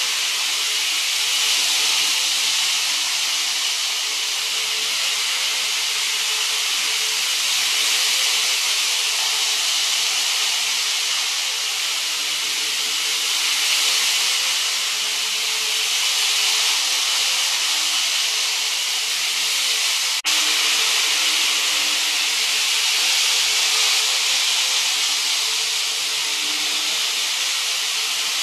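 Model Shinkansen trains running on a plastic elevated slab-track viaduct: a steady rolling hiss with a faint motor hum that comes and goes as the trains pass. About twenty seconds in, the sound breaks off sharply for an instant and then goes on.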